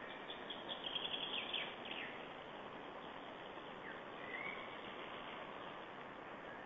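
Small forest songbirds calling over a steady background hiss: a quick run of high chirps in the first two seconds, then one short whistled note about four seconds in.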